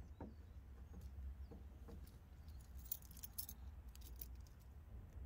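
Faint jingling of a car key fob and its key ring being handled, with a few light clicks and rattles.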